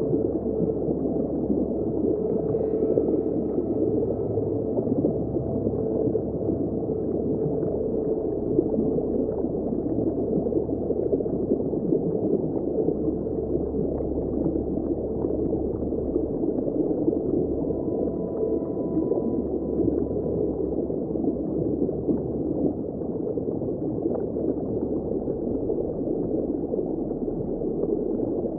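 Underwater ambience: a steady, muffled rush of water with nothing bright or high in it, over which a few faint held tones come and go.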